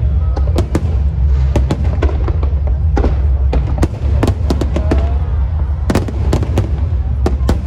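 Fireworks and firecrackers going off in a rapid, irregular string of sharp bangs, several a second, over a steady low rumble.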